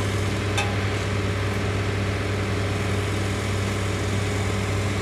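A large engine idling steadily with an even, unchanging hum, and a brief click about half a second in.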